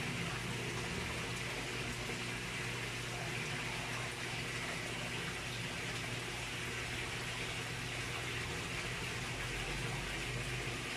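Steady rush of water pouring into a fish pond, with a low steady hum underneath.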